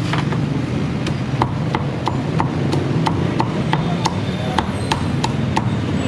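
Meat cleaver chopping roast pork on a thick wooden chopping block, a steady rhythm of about three sharp chops a second, over a low steady background rumble.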